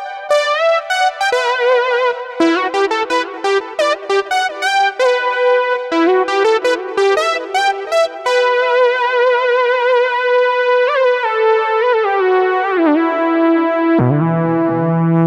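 Ensoniq ESQ-1 digital wave synthesizer playing a preset: a bright, many-overtoned patch with vibrato, quick runs of short notes at first, then held notes, with a lower note joining near the end.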